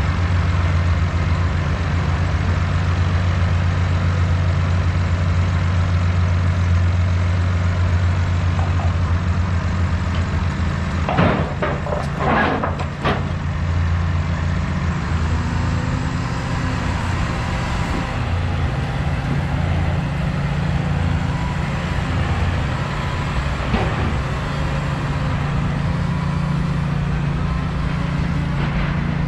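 Large diesel engine idling steadily, with a few short, sharp noises about eleven to thirteen seconds in.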